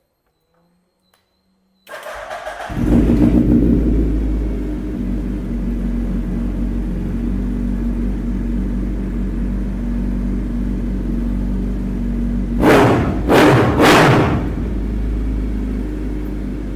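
2013 Suzuki Hayabusa's 1340 cc inline-four with an aftermarket exhaust being started: the starter cranks briefly about two seconds in, then the engine catches and idles steadily. Near the end it is blipped three times in quick succession and drops back to idle.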